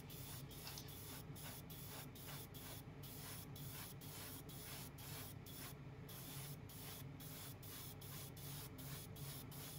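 Airbrush spraying grey primer in light coats onto a small plastic model part: a steady hiss of air and paint that pulses about three times a second, over a steady low hum.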